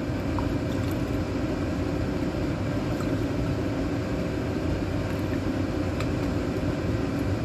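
Steady roar of the stovetop, a steamer pot boiling over a lit gas burner, with a few faint light clicks of a ladle and cup against the pot.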